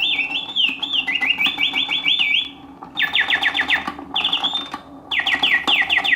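Antique Bontems singing bird cage playing on continuous mode: its bellows-driven whistle sings a mechanical bird song of quick gliding whistles and rapid trills, broken by short pauses between phrases. A light whirr of the clockwork mechanism runs underneath.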